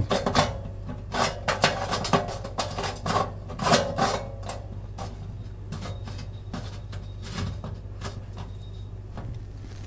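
Glass dome lamp cover of a fan oven being screwed back onto its threaded holder: a run of scrapes and small glassy clinks, some with a short ring, thinning out after about five seconds.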